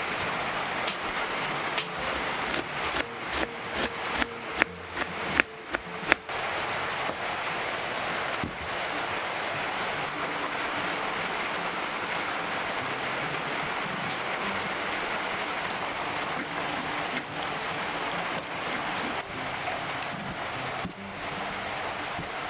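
Knife chopping cabbage on a wooden cutting board: a run of sharp, irregular knocks for about the first six seconds. After that, an even rushing hiss for the rest.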